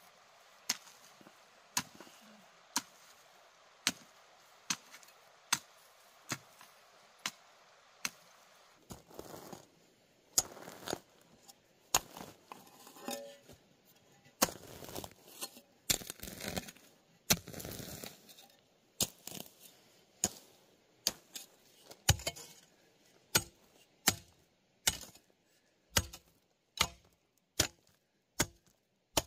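Repeated chopping strikes, sharp and evenly spaced at about one a second, broken in the middle by several seconds of rustling and scraping, then resuming a little faster.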